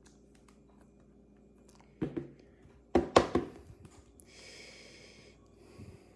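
Trading cards and plastic sleeves being handled on a table: a few sharp taps and clacks about two to three and a half seconds in, then a short rustling scrape lasting about a second.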